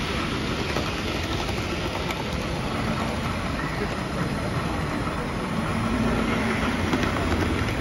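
Steady din of a busy model train show hall: a model train running on the layout amid the low chatter of the crowd.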